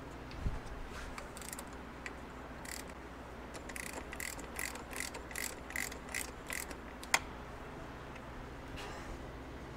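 A ratchet wrench clicks in a quick run, about two or three clicks a second, as it turns the centre screw of a homemade case-splitter puller that is forcing the two crankcase halves of a Suzuki TC125 engine apart. A soft thump comes about half a second in, and a single sharp metallic click, the loudest sound, follows the ratchet run.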